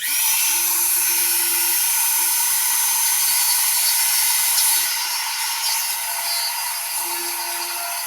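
Small high-speed power tool with a bit switching on abruptly and running steadily with a high whine, a little quieter after about five seconds.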